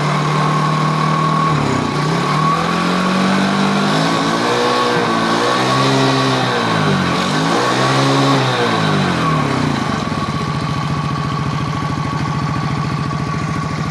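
Newly installed 110cc single-cylinder four-stroke engine of a quad, revved up and back down about three times, then settling back to a steady idle about ten seconds in. The engine is running well after its first start-up.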